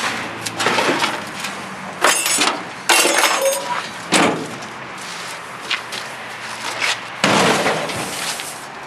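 Loose scrap metal clattering: several separate crashes and clanks, one with a ringing metallic note about three seconds in and a longer rattling crash near the end.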